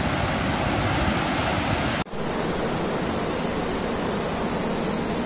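Water rushing steadily over a dam weir, an even loud rush; it breaks off for an instant about two seconds in and comes straight back.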